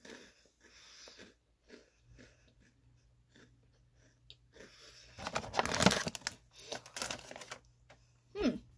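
A person chewing crunchy cheese ring crackers: a run of small crunches, loudest about five to seven seconds in.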